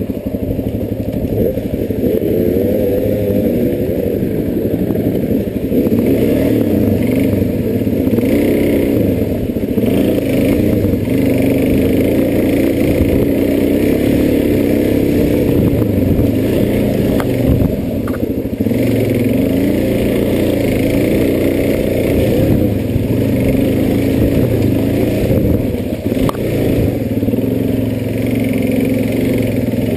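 Enduro dirt bike engine running as it is ridden off-road, its pitch rising and falling with the throttle. A few sharp knocks come through over rough ground.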